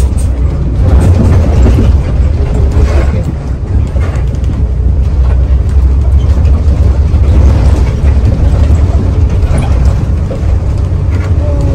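Mercedes-Benz OH 1521 bus running, a steady low engine and road rumble heard from inside the cabin.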